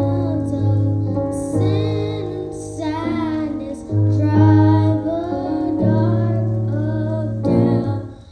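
A young female voice singing a slow song over instrumental accompaniment with held bass notes that change every second or two.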